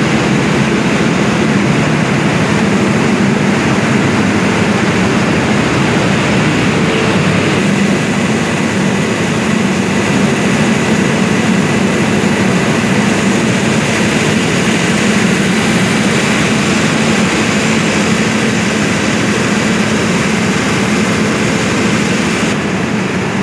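Loud, steady drone of heavy machinery running aboard a bucket-line tin dredge, heard in the engine room: a deep, even hum with a thin steady whine above it.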